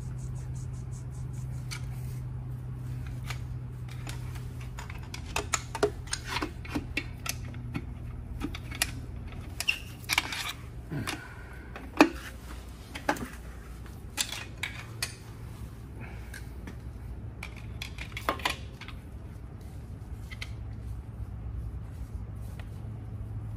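Scattered metallic clinks and taps of hand tools and parts as a connecting rod cap and piston are taken off the crankshaft of a Nissan SR20DET engine, the sharpest clink about halfway through, over a steady low hum.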